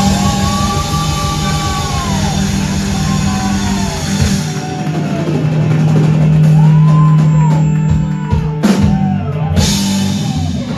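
Live rock band playing loud: electric guitars and a drum kit, with guitar notes bending up and down over sustained low notes, and a sharp hit about nine seconds in.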